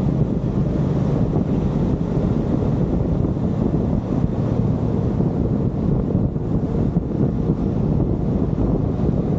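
Steady low rumble of a car driving along a road, road and wind noise, with a faint high whine slowly rising and falling in pitch.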